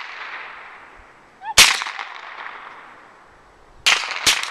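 Three gunshots, each a sharp crack followed by a long echo that fades away; the first about one and a half seconds in, the last two close together, about half a second apart, near the end.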